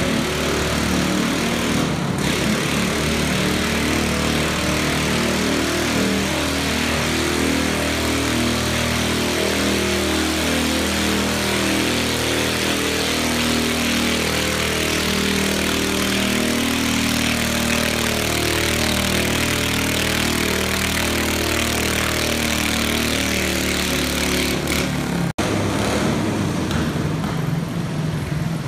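Small garden tractor engine running hard under load as it pulls a weight sled along a dirt track, with a steady drone that wavers a little in pitch. The sound briefly cuts out about 25 seconds in, then the engine carries on.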